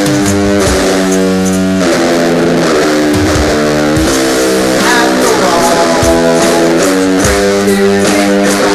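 Rock song with electric guitar chords held and changed every couple of seconds over bass and steady drum hits.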